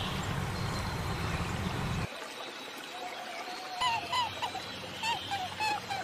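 A series of short animal calls, each bending in pitch, repeating several times a second from about three seconds in, after a steady low rumble that stops about two seconds in.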